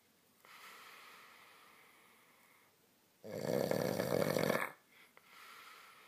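A man asleep on his back, snoring: a soft breath, then one loud, rasping snore about three seconds in that lasts about a second and a half, then another soft breath.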